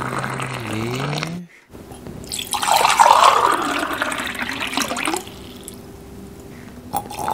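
Hot water poured from a plastic jug into a cup, with a low tone that rises in pitch before it cuts off abruptly about one and a half seconds in. After a short gap a second pour of water into a cup runs for about two and a half seconds, louder and splashier, then dies away. The pouring sound differs between hot and cold water because water runs thinner the hotter it is.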